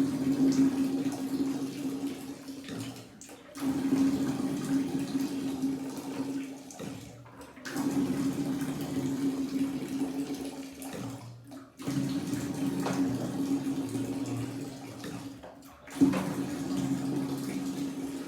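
Water rushing out of a water heater's drain as the tank is flushed of sediment and dirty water, with a steady hum in the flow. The rush breaks off briefly about every four seconds and then starts again.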